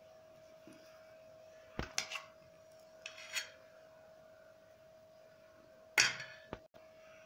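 A metal spoon clinking and scraping against a stainless steel bowl while cheese filling is scooped out. There are short clinks about two seconds and three seconds in, and the loudest one, which rings briefly, about six seconds in. A faint steady hum runs underneath.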